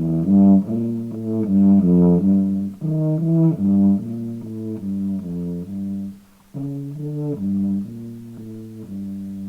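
Tuba playing a low melody of separate notes, with a short pause about six seconds in before the tune carries on.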